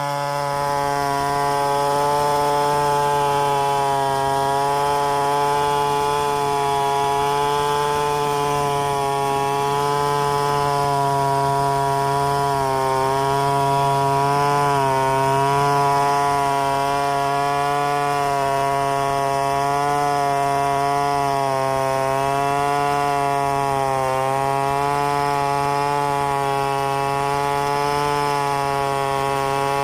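Large two-stroke chainsaw running at high revs while ripping lengthwise through a mahogany log in a freehand milling cut. Its steady engine note wavers slightly up and down as the load on the chain changes.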